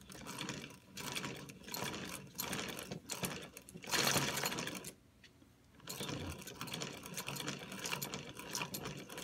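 Single-cylinder assembly of a homemade air engine, its crank, piston and rotary slider valve being turned over, making a rapid clattering of small metal parts. The clatter runs in two spells with a brief pause a little past the middle.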